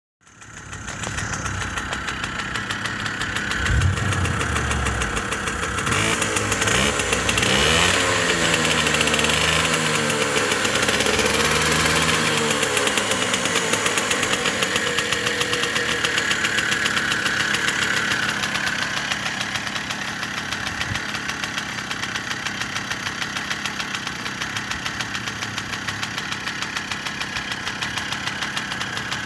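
Puch moped's small two-stroke single-cylinder engine running steadily on its stand, with a fast even beat; its sound swells and glides in pitch for a while about a third of the way in, then settles.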